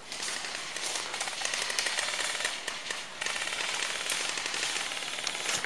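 Airsoft rifles firing on full auto: rapid, dense strings of shots in two long runs, with a short break about three seconds in.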